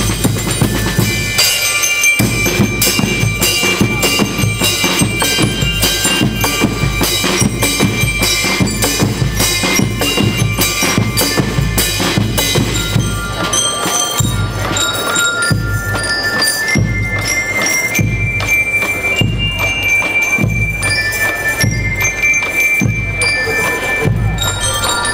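School rhythm band (banda rítmica) playing: snare drums and a bass drum keep a fast, dense beat while metal bell lyres ring out a melody. About halfway through the snare strokes thin out and the bass drum marks a slower, steady pulse of hits a little over a second apart under the bell-lyre tune.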